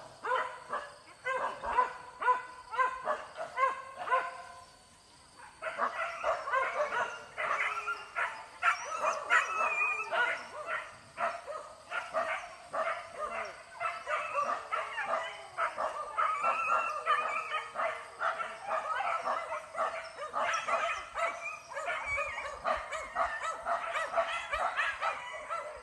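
A pack of boar-hunting dogs yelping and baying together, several voices overlapping almost without a break. They fall quiet for about a second about four and a half seconds in, then start again.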